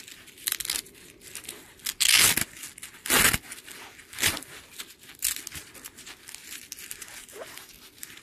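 Hook-and-loop (Velcro) strap of a Gen 7 CAT tourniquet being ripped open in a series of short tearing pulls, the three loudest about two, three and four seconds in, with quieter strap handling between.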